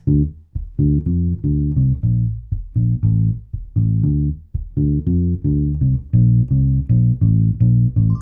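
Fretless Tiny Boy Bass mini bass with steel flatwound strings, played through a bass amp with no pedals and its tone control rolled off a little. A steady run of short plucked notes, deep and with little treble.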